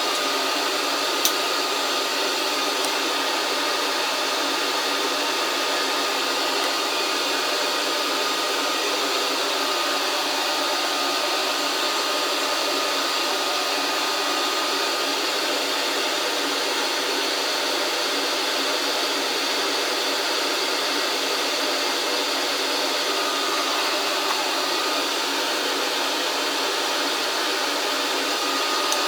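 Small electric blower running steadily, a constant rush of air with a thin high whine, and one faint click about a second in.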